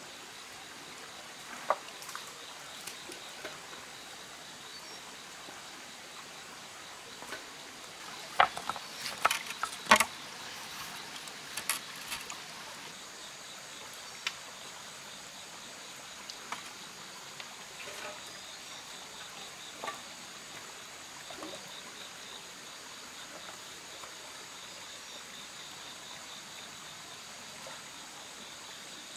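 Shallow stream trickling over rocks, with sharp knocks and clacks of stones and bamboo poles being handled, clustered about a third of the way in. About halfway in, insects start a steady high-pitched drone.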